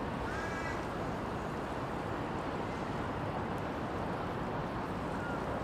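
Steady low outdoor rumble and hiss of a waterfront, with a few short bird chirps about half a second in and again near the end.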